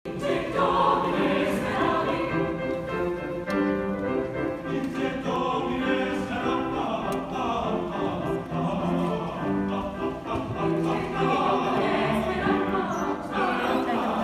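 Mixed choir of men and women singing sustained notes in parts, with grand piano accompaniment.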